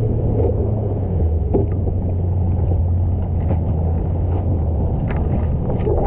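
A jet ski's engine running steadily as it pulls up close, over the rush of churning whitewater.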